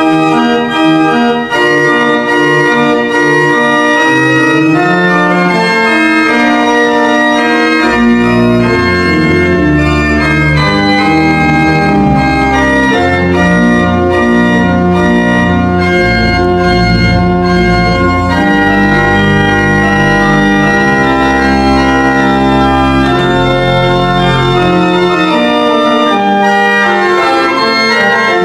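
Church pipe organ, newly restored, playing a piece of sustained, overlapping chords and melody lines. Deep bass notes come in about eight seconds in and drop out a few seconds before the end.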